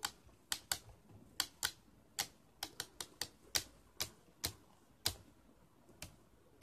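Beyblade Burst spinning top clicking as it knocks against the side of a plastic bowl: sharp, irregular clicks, about two a second.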